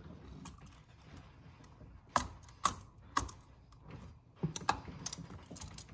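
Irregular sharp clicks and light knocks, the loudest a little over two seconds in, as a silicone coolant boot carrying a metal T-bolt clamp is pushed and worked by hand onto a radiator inlet neck.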